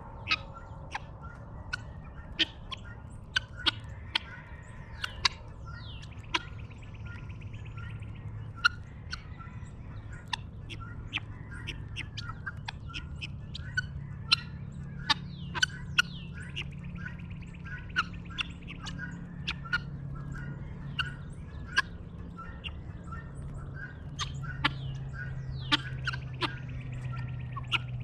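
Dawn chorus of birds: many short, sharp chirps and calls, with a few falling whistles and several harsh rattling calls. A steady low hum runs underneath and grows louder near the end.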